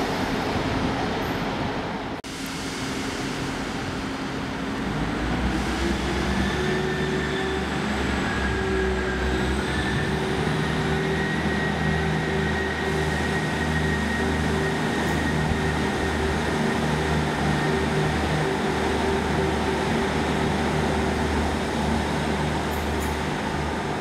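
Class 158 diesel multiple unit's Cummins engines idling, then powering up about five seconds in as the unit pulls away from the platform. The engine note rises and settles into a steady low drone with a high whine over it.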